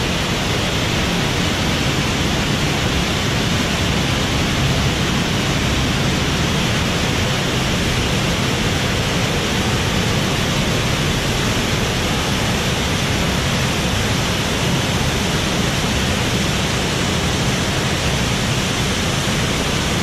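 Underground waterfall pouring into a cave pool: a steady, loud rush of falling water.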